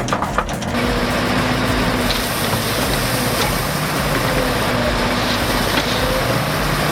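Heavy earthmoving machine's engine running steadily with a dense, even mechanical noise, after a brief crackling in the first moment.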